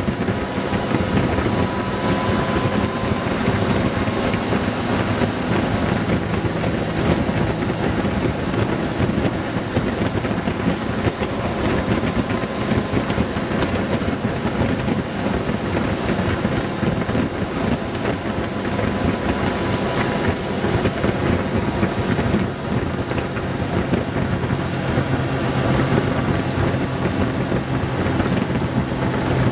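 Honda Gold Wing GL1800's flat-six engine running steadily at cruising speed, mixed with wind rush on the microphone. The low engine hum grows a little stronger near the end.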